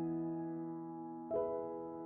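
Slow background piano music: held chords ringing out, with a new soft chord struck about a second and a quarter in.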